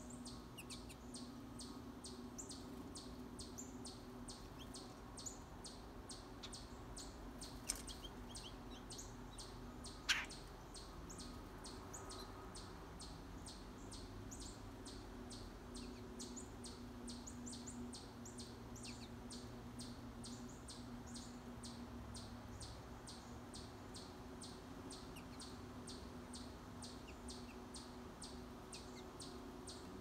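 Wild birds calling, with a high chirp repeating evenly two or three times a second throughout. One louder, sharp downward-sweeping call comes about ten seconds in, over a faint steady low hum.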